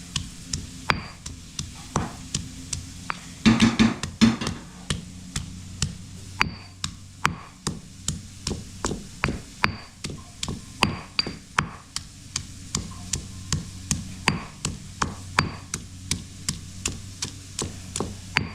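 A metal spoon or spatula repeatedly knocking and scraping against the pan as chicken is stir-fried, about two to three strikes a second, with a louder flurry about four seconds in. A steady low hum from a grass-cutting machine runs underneath.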